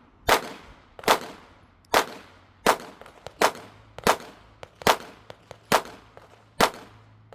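Nine shots from a Smith & Wesson M&P Shield Plus 9mm pistol with a compensator, fired at a steady pace a little under a second apart, each trailing off in a short echo.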